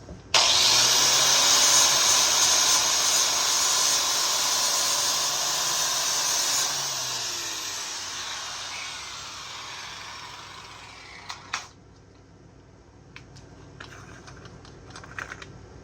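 Handheld power grinder with a flapper wheel starts at once and runs at full speed for several seconds, abrading the rivets of a steel chainsaw chain, then slows and winds down over about five seconds. A sharp knock follows, then a few light clicks of handling.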